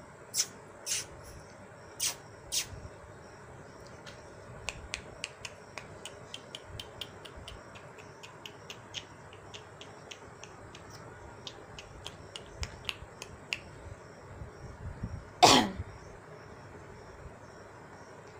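Sharp clicks: four loud ones in the first three seconds, then a run of fainter, quicker ones. They sit over a steady high chirring of crickets. About fifteen and a half seconds in comes one loud, short sound that falls steeply in pitch.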